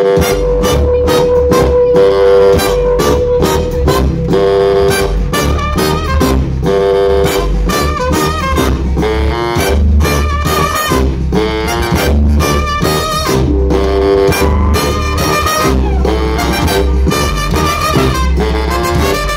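Live band music heard from the audience: trumpet and two saxophones playing a horn line over drums, electric guitar and bass guitar, with a regular drum beat and heavy bass.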